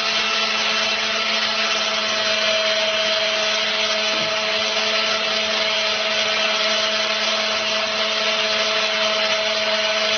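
Electric angle grinder running steadily at a constant pitch while it is passed over a man's hair to cut it.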